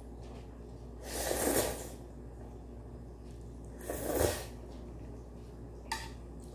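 Ramen noodles slurped twice, each a loud, airy slurp lasting about a second, the first about a second in and the second about four seconds in. A light click near the end, as chopsticks touch the pot.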